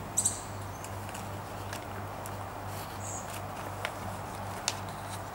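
Hand handling of model-plane parts as a spar or wiring is fed into a wing: a pair of sharp clicks about a quarter second in, a short high squeak near the middle and a couple more light clicks later, over a steady low hum.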